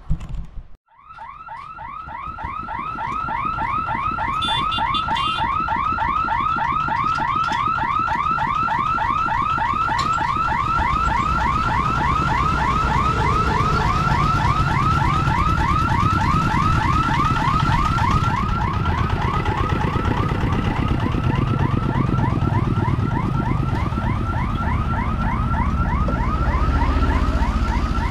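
Electronic level-crossing warning hooter sounding as the crossing barrier is lifted: a loud, rapid, steadily repeating warble that starts about a second in.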